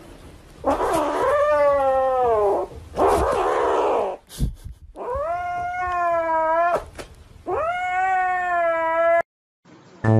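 Domestic cat giving three long, drawn-out yowls, each bending in pitch, the first with a rough, harsh edge.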